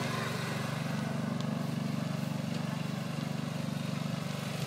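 Ride-on lawn mower's small engine running steadily as it drives across grass.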